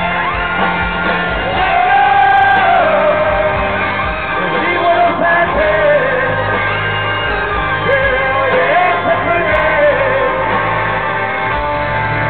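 Live rock band with a male lead singer playing a song through a concert PA, heard from the audience in a large venue.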